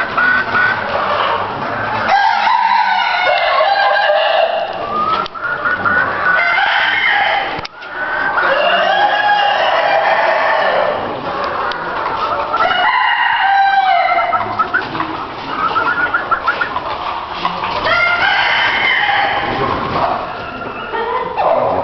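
Many roosters crowing over one another, with hens clucking in between, in a continuous chorus of overlapping calls.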